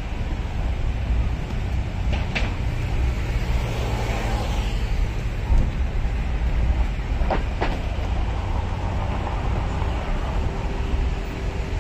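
Steady low rumble of road traffic, with one sharp click a couple of seconds in and two more close together past the middle.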